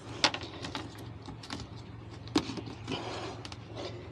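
Irregular clinks, knocks and scrapes of gear being handled aboard a boat, over a steady low hum.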